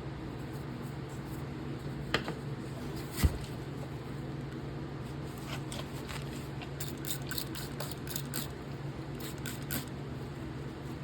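Small hard objects handled on a workbench: a knock about two seconds in and a louder one a second later, then a run of light, quick clicks and ticks, over a steady low hum.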